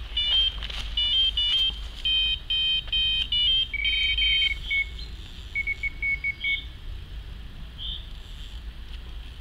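Electronic carp bite alarm on a rod pod sounding a rapid run of beeps as a fish takes line: a bite. About four seconds in, a second, lower-pitched run of beeps joins and then carries on alone for a few seconds.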